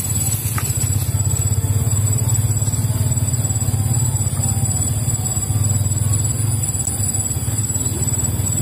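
A steady low engine drone with a fast flutter, running without change in pitch.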